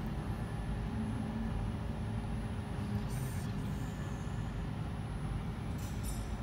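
Steady low room noise of a restaurant dining room, with two brief high-pitched sounds about three and six seconds in.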